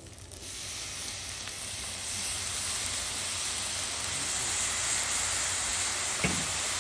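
Fried rice sizzling on a hot Blackstone flat-top griddle as soy sauce is squeezed over it. The sizzle starts about half a second in and grows louder as the sauce spreads. A single sharp tap comes near the end.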